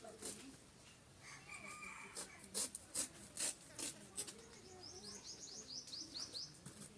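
A knife scrapes and cuts through jackfruit rind in a few sharp strokes. Birds call at the same time: a short call about a second in, then a quick trill of falling chirps, about four a second, from about four seconds in.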